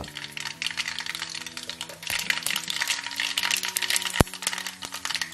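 Mustard seeds and then fenugreek seeds sizzling and crackling in hot coconut oil in a steel kadai, the crackle growing denser about two seconds in, with a sharp pop near four seconds. Soft background music with steady low notes underneath.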